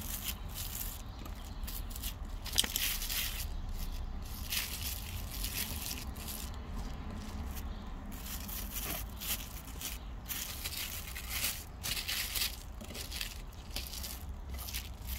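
Thin plastic bag crinkling and rustling as a spoon scrapes and smears thick chunky peanut butter across it, in irregular strokes, with one sharp click about two and a half seconds in.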